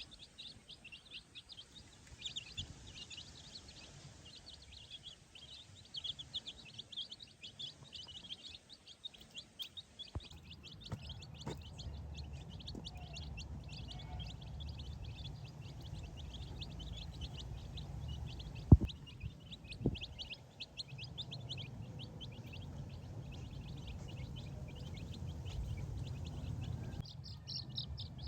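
Baby chicks peeping, many rapid high cheeps overlapping. About ten seconds in, a low rumble comes in and the peeping thins out. Two sharp knocks, a second apart a little past halfway, are the loudest sounds.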